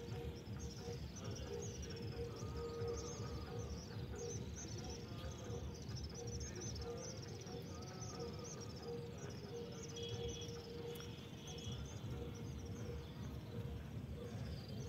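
Small birds twittering: a continuous chatter of short, high chirps, each falling in pitch, over a steady low hum and a low rumble.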